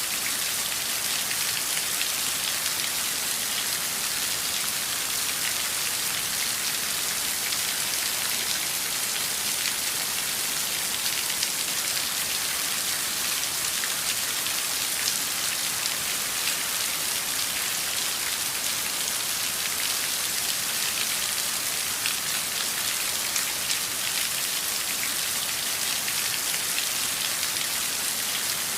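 Steady downpour of heavy rain falling on a surface: a dense, even hiss of countless small drop impacts, strongest in the high end.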